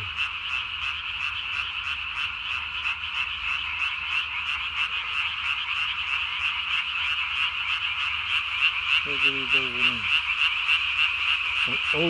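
A dense chorus of Japanese tree frogs calling, with the nearest frog close by and its vocal sac inflated. The calls are rapid, evenly repeated notes, about four a second.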